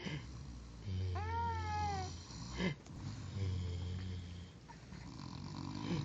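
A man snoring in long, low rumbles, two of them about two and a half seconds apart. Over the first snore a baby gives one high, arching coo.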